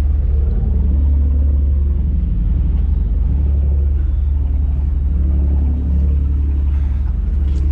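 A fishing boat's engine running steadily, a loud, even, low-pitched hum.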